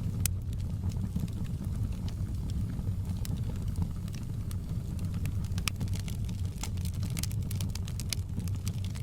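Log fire burning: a steady low rumble with scattered sharp crackles and pops, several a second at times.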